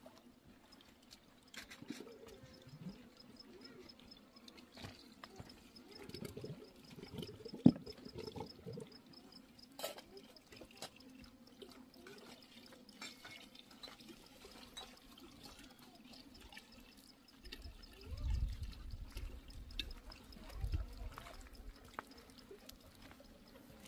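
Water trickling and dripping, with scattered small knocks and one sharp click about eight seconds in, and low rumbles about three-quarters of the way through.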